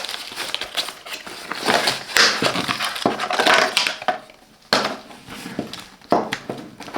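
Cardboard product box being opened and its contents unpacked by hand: irregular rustling and scraping of packaging with sharp clicks and knocks, dropping off for a moment about four seconds in.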